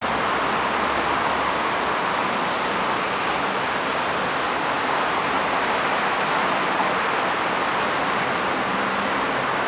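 Steady rushing background noise of an open-air metro station platform, even and unchanging throughout.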